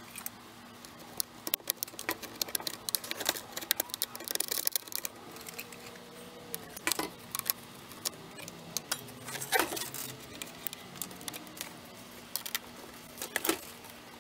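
Irregular light clicks and scrapes of a small screwdriver and fingers against a tankless water heater's plastic housing, working at a screw hidden under the warning sticker, with a few sharper clicks, over a faint steady hum.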